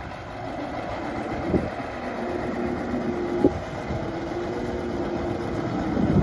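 Heavy machinery engine running steadily with a held humming tone, and two short knocks along the way.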